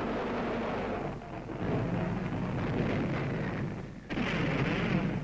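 Rumbling noise of a bombing raid, then a sudden bomb explosion about four seconds in.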